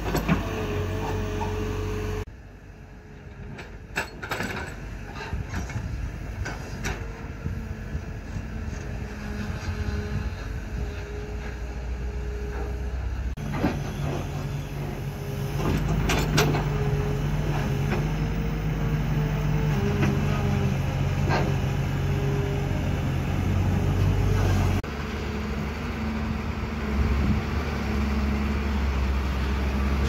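Crawler excavators' diesel engines running as they dig and move dirt, with a steady higher whine over the engine hum and several sharp knocks. Several clips are cut together, so the engine sound changes abruptly a few times.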